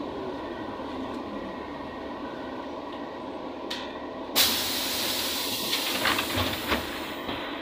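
Inside a ZiU-682G trolleybus: a steady cabin hum, then about four seconds in a sudden loud hiss of compressed air lasting some three seconds, with a few clunks, as the pneumatic doors open at a stop.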